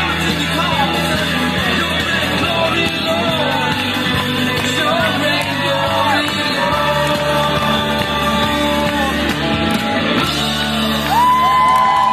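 People singing a song with musical accompaniment, with long held notes near the end.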